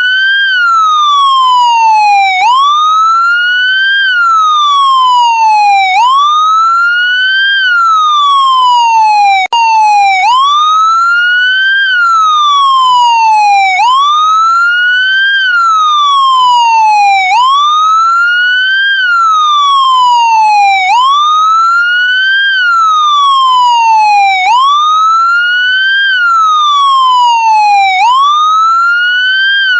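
Police siren in wail mode: a tone that climbs quickly and then falls slowly, repeating about every three and a half seconds. It cuts out for an instant about a third of the way through.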